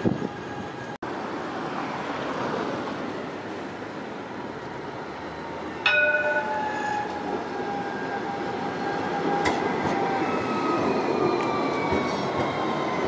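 Alstom Citadis Compact tram running on street track: wheels rumbling on the rails under a thin electric whine from its traction drive that slowly falls in pitch as it slows. The sound drops out for an instant about a second in, and grows louder near the middle as the tram comes close.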